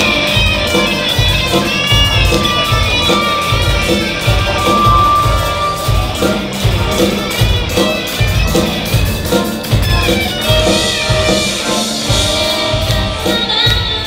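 Live student pop-rock band playing with amplified singing: several girls' voices over a drum kit, electric guitars and keyboards, the drums keeping a steady beat.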